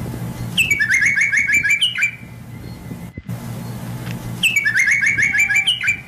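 A songbird singing the same short phrase twice, each a high opening note followed by a fast run of repeated chirps lasting about a second and a half, over a steady low hum.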